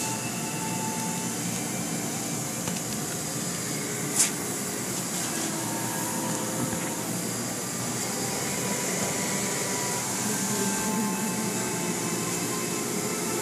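Steady hiss and hum of car wash machinery, with one sharp knock about four seconds in.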